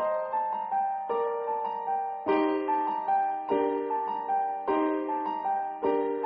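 Background piano music: a gentle melody of single notes over chords struck about once every second or so.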